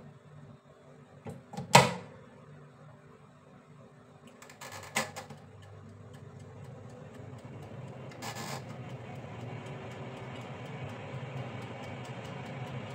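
A sharp knock, then a few lighter knocks, after which a glass-bowl halogen convection oven's fan runs with a steady whir from about five seconds in.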